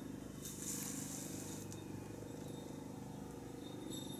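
A mother cat purring steadily as she nurses her kittens. About half a second in comes a brief soft rustle of movement.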